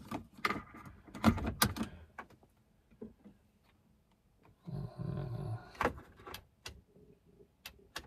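Sharp clicks of plastic console parts and a switch being handled, then about a second of whirring from a small electric motor near the middle.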